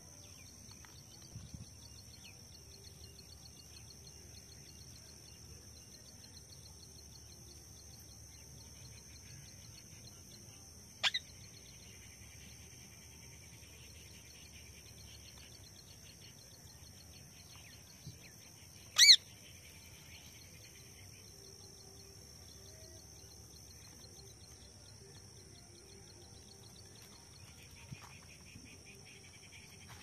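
Indian ringneck parakeet giving two short, shrill squawks, the second, about 19 seconds in, much the louder. A steady high-pitched whine runs underneath.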